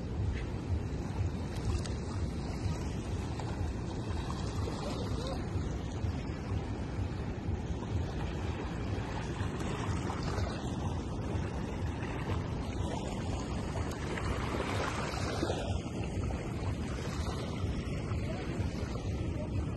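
Wind rumbling on the microphone over the steady wash of small waves on a sandy beach.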